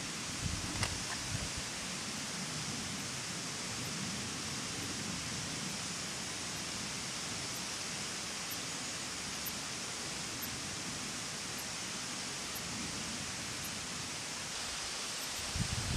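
Steady, even hiss of outdoor background noise, with a few soft low thumps in the first second and a half.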